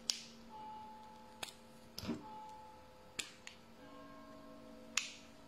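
A few faint, separate clicks and taps, about five in all, from makeup items being handled: a lip pencil and a metal compact. Faint steady tones sit underneath.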